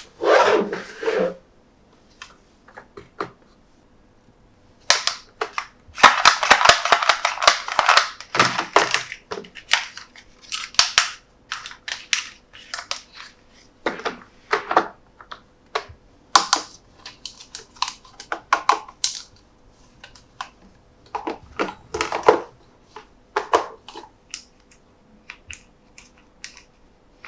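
Toy packaging being handled and opened by hand: irregular sharp clicks, snaps and taps, with a dense rustling stretch about six to nine seconds in.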